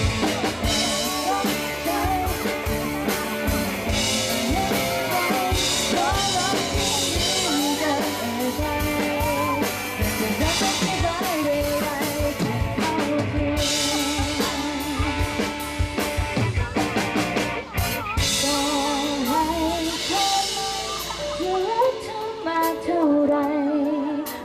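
A live band playing a Thai pop-rock song, with drum kit and singing over it, during a sound check.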